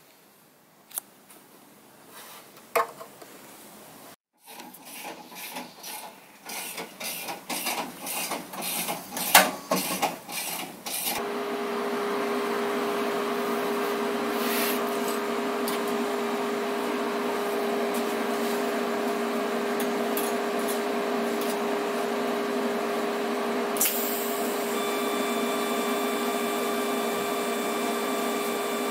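A run of rasping strokes that grow quicker and louder, then a steady mechanical hum with a fixed tone. About 24 s in, a TIG welder's arc strikes and buzzes steadily on the steel crossmember.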